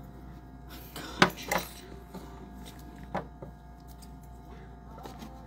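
Light clicks and taps of a spoon and handled ingredients against a blender cup: a sharp click about a second in, another just after it, and one more about three seconds in, over a faint steady hum.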